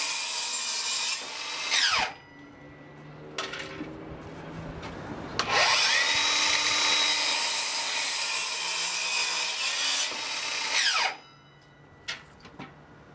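Milwaukee M18 FUEL 7-1/4-inch cordless sliding compound miter saw crosscutting a wooden board, twice. The first cut ends and the blade winds down with a falling whine. After a pause the motor spins up with a rising whine, cuts through the board and winds down again, followed by a few light clicks.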